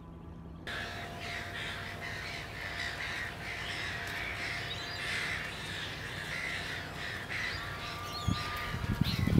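Birds calling, a busy chorus that goes on throughout, with a few low thumps near the end.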